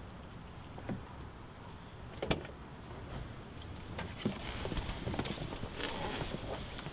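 A series of clicks and knocks over a low steady rumble, with one sharp knock about two seconds in and the clicks coming thicker in the second half.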